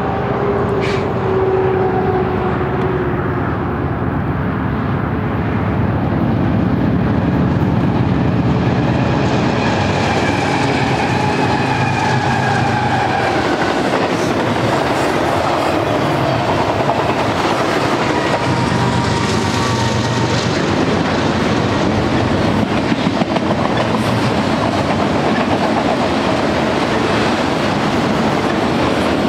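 Long freight trains rolling past close by, BNSF double-stack container cars and auto-rack cars: a steady rumble of steel wheels on rail with clickety-clack over the rail joints. A few faint thin tones drift in pitch near the middle.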